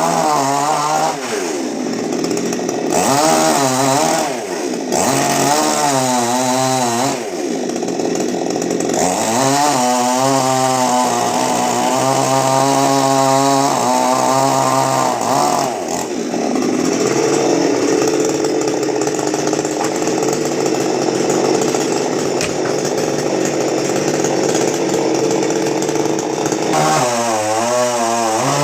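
Chainsaw cutting a coconut palm: the engine revs up and down several times, then runs steadily at a lower pitch under load for about ten seconds, and revs up and down again near the end.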